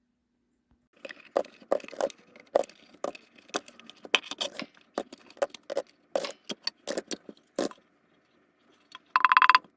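An irregular run of sharp clicks and clatters, like small hard objects being handled or knocked together. It is followed near the end by a brief buzzing tone lasting under a second.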